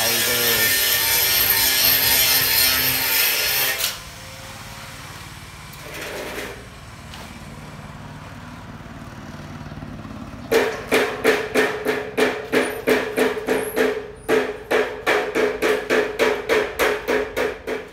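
A power tool runs loudly and cuts off about four seconds in. From about ten seconds in, a fast, even run of hammer blows, three to four a second, each with the same short ringing note.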